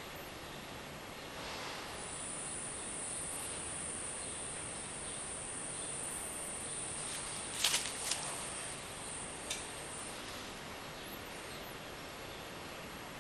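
Quiet steady hiss with a thin high whine through most of it and a few sharp clicks about eight seconds in.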